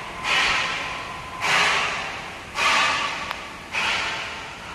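A rhythmic hissing swish repeating about once a second, each one rising sharply and dying away over about a second.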